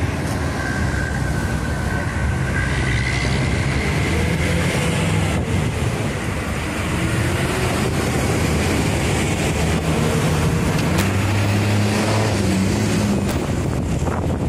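Busy street traffic: vehicle engines running close by in a steady wash of road noise, with a heavier low engine hum strongest toward the end.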